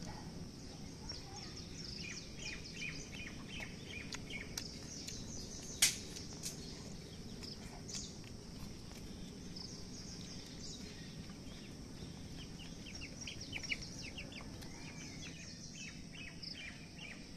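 Small birds chirping in quick runs of short high calls, coming and going in clusters. A single sharp click about six seconds in.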